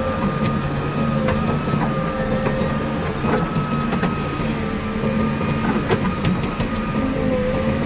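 Heavy diesel earthmoving machinery running steadily, with a held high whine over the engine and scattered sharp knocks throughout.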